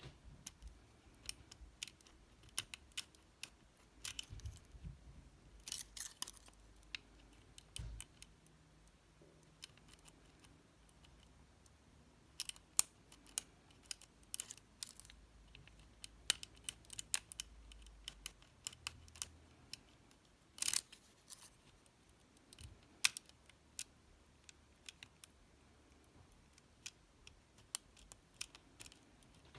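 Scattered small metallic clicks and scrapes of a hook pick and Z-bar tension wrench working the sliders inside an OnGuard slider padlock, irregular and faint, with one sharper click about two-thirds of the way through.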